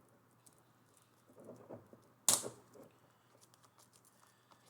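Packaging being handled during an unboxing: faint taps and light rustles, with one sharp click a little over two seconds in.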